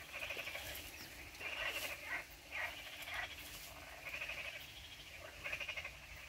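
Frogs croaking: about six rattling calls, each under a second long, following one another a second or so apart.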